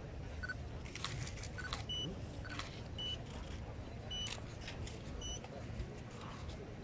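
Press DSLR cameras giving short high autofocus beeps, roughly once a second, with scattered sharp shutter clicks over a low murmur of a large outdoor crowd.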